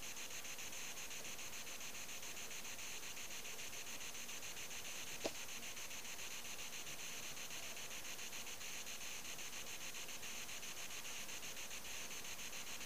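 Steady static hiss with a fast, even flutter, and a single short click about five seconds in.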